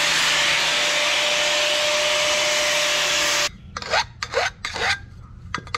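Metal-working on a freshly hand-sawn aluminium intercooler pipe: a steady harsh rasp for about three and a half seconds that cuts off abruptly, then a run of short hand-file strokes deburring the pipe's cut edge.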